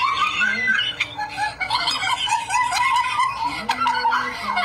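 High-pitched, wavering voice sounds without clear words, running with only short breaks.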